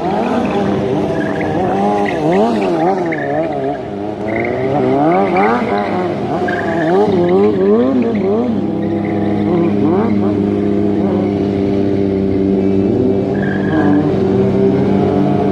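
Stunt motorcycle engines revving up and down in quick repeated swings, then running at a mostly steady pitch from about halfway through, with a few short high squeals.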